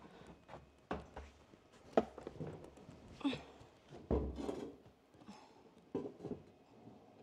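Irregular thuds and knocks in a small enclosed space, about five over several seconds, as someone climbs down into the barge's engine room.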